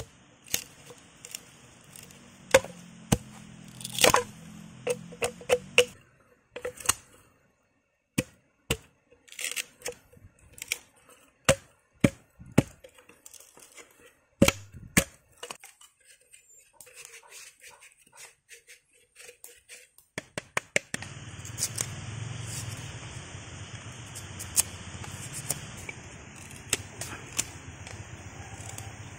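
Machete chopping and splitting green bamboo: a long run of sharp, irregular cracks and knocks, with the tearing of the fibres as strips split away. About two-thirds of the way through, a steady hiss comes in under the strikes.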